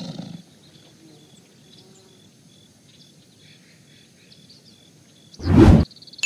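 A tiger's growl trails off at the start, leaving faint outdoor ambience with birds chirping. About five and a half seconds in comes a sudden loud sound lasting about half a second.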